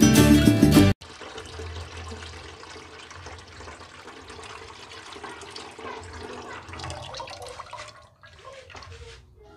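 Guitar music cuts off about a second in. Then coconut milk is poured through a mesh strainer into a metal pot: a steady splashing trickle that breaks up near the end.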